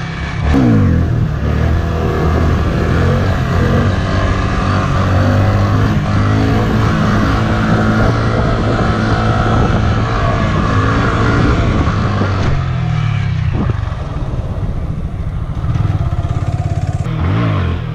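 Honda Grom's small single-cylinder engine running under throttle. Its pitch climbs about half a second in, holds, changes and rises again past the middle, and it gives a short rev blip near the end.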